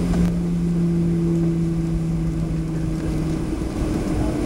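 Boeing 737 jet engines at taxi power, heard inside the cabin as a steady low rumble with a hum that drops out about three and a half seconds in.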